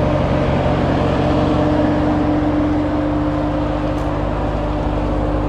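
Ram TRX pickup's supercharged 6.2-litre V8 idling steadily.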